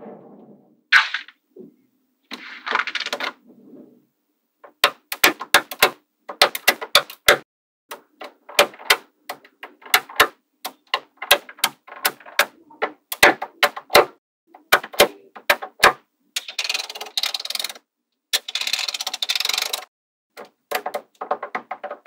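Small magnetic balls clicking sharply as sheets of them are snapped together onto a block, in quick clusters of clicks, with two longer stretches of rattling, scraping balls near the end. In the first few seconds there is a sliding rustle as a card is drawn out from between layers of balls.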